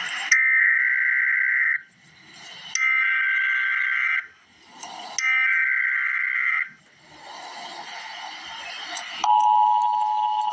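Emergency Alert System SAME header: three bursts of digital data tones, each about a second and a half long, followed about nine seconds in by the steady two-tone EAS attention signal, which marks the start of a severe thunderstorm warning.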